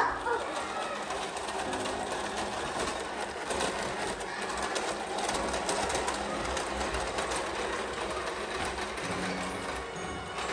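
Motorized toy train running steadily around a plastic track, its small electric motor whirring with a fine rattle from the wheels on the track.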